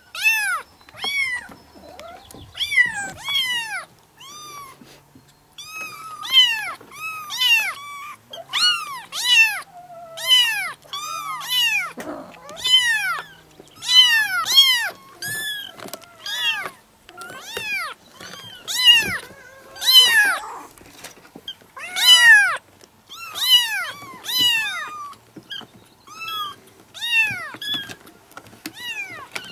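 Several young kittens meowing over and over, short high calls that rise and fall in pitch, often overlapping, about one or two a second.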